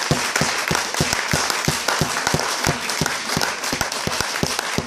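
Audience applauding: many hands clapping in a steady, dense round.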